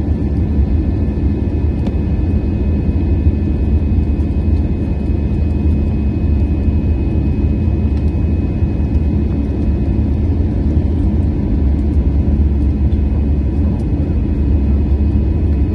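Steady cabin rumble of an Airbus A320-216 in its initial climb, heard from a window seat beside the wing: engines at climb thrust and airflow over the fuselage, with a faint steady high whine over the deep rumble.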